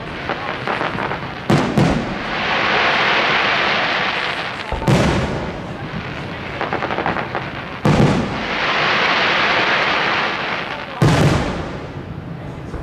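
Aerial fireworks shells bursting with sharp bangs roughly every three seconds, two of them close together near the start. Between the bangs run long crackling, hissing stretches from the bursting effects.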